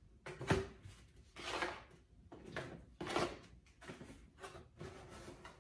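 Cardboard shoe box being opened and handled: a series of short scraping, rubbing sounds as the lid and flaps slide against the box, about six over a few seconds.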